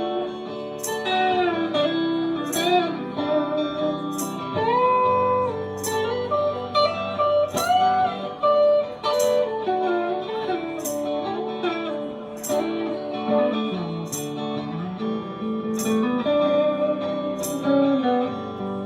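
Band playing a Southern rock song, instrumental section: a lead guitar plays bending, sliding notes over the backing band, with a drum stroke about once a second.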